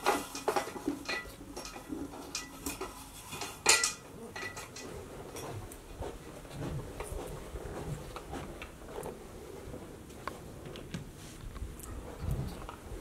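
Scattered light clicks and metallic clinks over a low rumble of handling noise. The loudest clinks come at the very start and about four seconds in.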